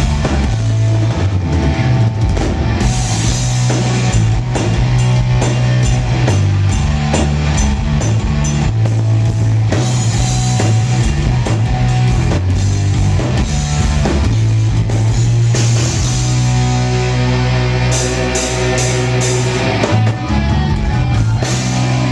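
Heavy metal band playing live: electric guitars, bass and drum kit, at full volume.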